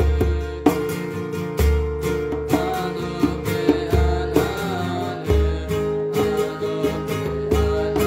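Music led by a strummed acoustic guitar, with repeated strokes and a deep pulse every second or two under held notes.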